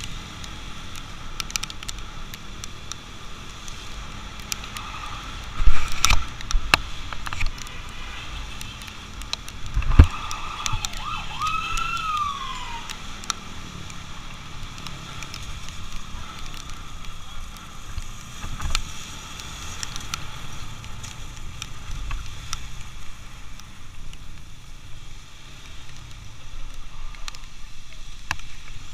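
Escort sirens sounding over the road and wind noise of a motorcycle riding at speed, with one siren tone sliding down in pitch about eleven to thirteen seconds in. Two loud thumps about six and ten seconds in stand out.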